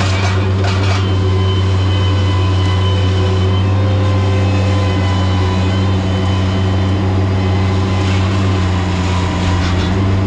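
Heavy engine running steadily at a constant speed, a deep even hum with no breaks.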